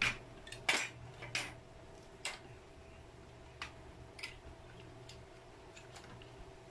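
Sharp clicks and taps of a metal straight-guide rod being slid and seated into a palm router's plastic base, the loudest in the first second and a half, then fainter ones every second or so. A faint steady hum sits underneath; the router is not running.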